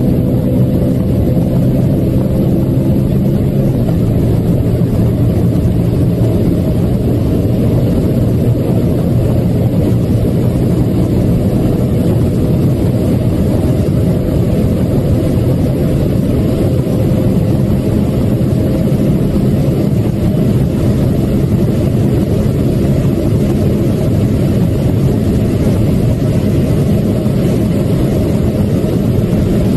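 BMW M3 E92's 4.0-litre V8 running at high revs in top gear at well over 300 km/h, heard from inside the cabin as a steady engine drone under heavy wind and road noise. There is one upshift from sixth into seventh gear.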